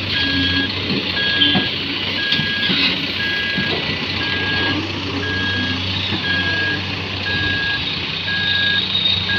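Heavy-machinery warning alarm beeping evenly, a bit more than once a second, over the steady drone of diesel engines. A few knocks in the first three seconds as the excavator bucket dumps soil and rock into a tipper's steel bed.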